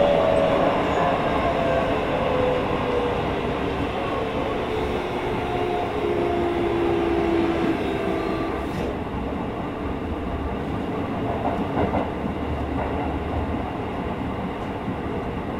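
Toyo GTO-VVVF inverter of a Hokuso 7300 series commuter train, heard from inside the car right above the main controller. Its whining tones glide down in pitch over the first several seconds as the train slows under braking, then fade into steady wheel and rail running noise.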